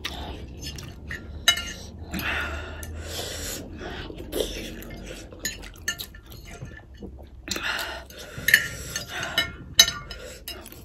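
Forks and spoons clinking and scraping against ceramic plates, with sharp single clicks every second or two, while spicy ramen noodles are slurped up between them.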